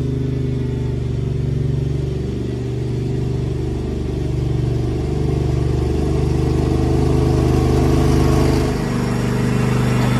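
Cub Cadet XT2 riding mower engine running steadily, with a brief dip in level about nine seconds in.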